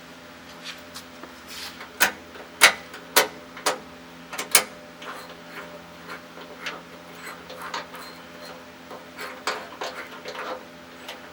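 Sharp clicks and taps from the dash controls being worked while the lights are tested: five loud clicks about half a second apart, then lighter, irregular ticks.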